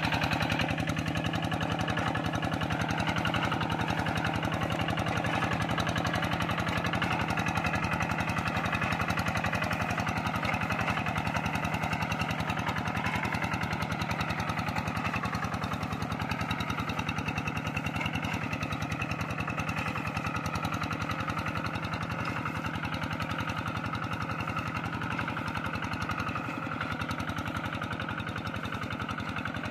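Two-wheel walking tractor's single-cylinder diesel engine running steadily under load, a fast even beat of firing strokes, as it ploughs a muddy rice paddy on iron cage wheels.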